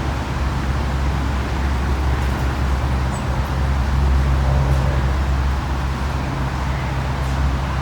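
Steady city ambience: a constant low rumble of distant traffic with a broad hiss over it. A brief high chirp comes about three seconds in.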